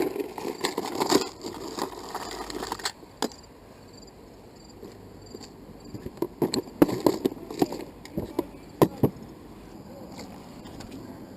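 Handling noises: rustling with scattered sharp clicks and knocks, in a cluster near the start and another from about six to nine seconds in, as fishing gear is handled and a caught fish is put on a stringer.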